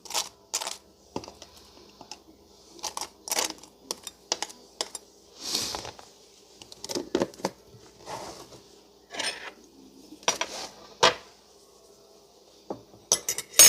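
Knife and kitchen utensils handled while mayonnaise is spread on a toasted bun: scattered light clicks and clinks with a few short scrapes.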